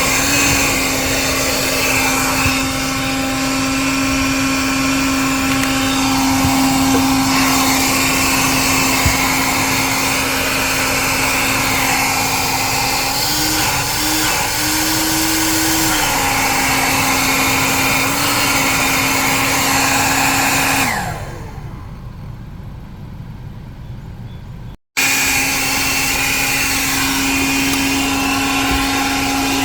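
Small 1980s Bon Aire one-gallon wet/dry shop vac motor running with a steady whine, its pitch lifting briefly a few times about halfway through. About two-thirds of the way in it is switched off and winds down, then it is running again near the end.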